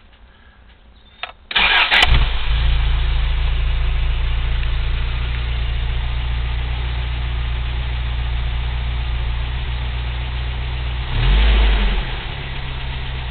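1987 Toyota 4Runner's 22R-E 2.4-litre four-cylinder engine starting quickly about a second and a half in after a single click, then idling steadily, with one brief rev about 11 seconds in. It starts without trouble; the owner suspects a misfire.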